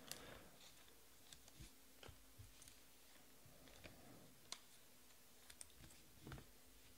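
Near silence broken by faint, scattered clicks and taps of trading cards being handled and set down on a table, about nine in all at uneven spacing.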